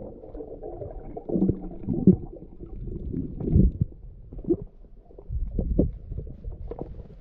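Underwater sound picked up by an action camera in its waterproof housing: a muffled low churn of moving water with irregular gurgles and knocks.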